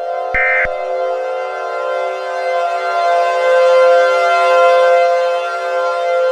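The last of three short EAS data bursts, the end-of-message tones, about half a second in. Under it a steady, loud civil defense siren tone holds on and swells in loudness toward the middle.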